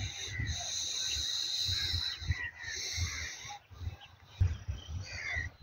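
Outdoor rural evening ambience: scattered bird calls over a steady high-pitched drone that drops out a little past halfway, with irregular low buffeting on the microphone.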